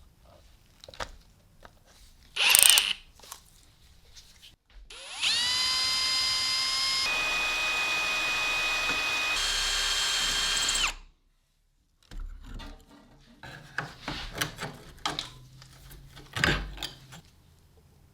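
A power drill spins up about five seconds in, runs steadily for about six seconds with two shifts in pitch, then stops. Before it there is a short loud burst of noise, and after it come scattered clicks and knocks of handling.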